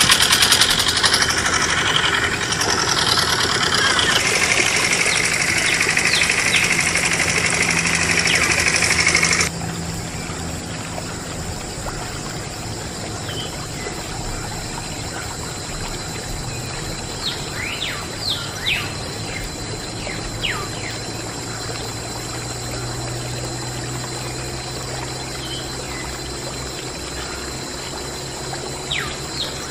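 Thin stream of water pouring from a toy water pump's outlet pipe into a shallow puddle, a steady trickle. A louder steady noise runs over it for the first nine seconds or so and cuts off suddenly. Short falling bird chirps come a few times later on.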